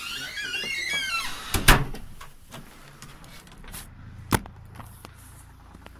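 A door banging shut about one and a half seconds in, the loudest sound, then a second sharp knock about four seconds in. Wavering high squeaks come just before the bang.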